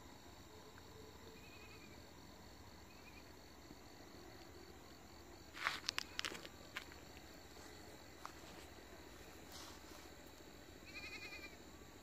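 A goat bleating at a distance, with two short faint calls early and a clearer quavering bleat near the end. About halfway through comes a quick cluster of sharp clicks, the loudest sound.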